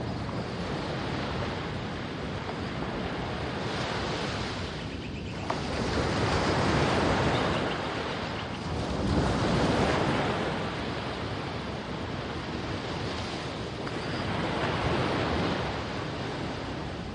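Ocean surf on a sandy beach: waves breaking and washing up the shore in slow swells, about four of them, each building and ebbing over a few seconds.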